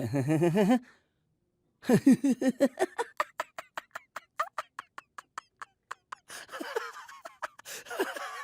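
A person laughing in imitation of a generator engine: a drawn-out voiced opening, then, about two seconds in, a fast chugging run of short laugh pulses, about five or six a second, that trails off with two more swells near the end.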